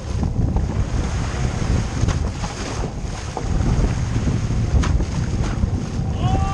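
Wind buffeting the microphone over choppy water, with waves slapping against a small boat's hull. A few light knocks stand out, the clearest about five seconds in.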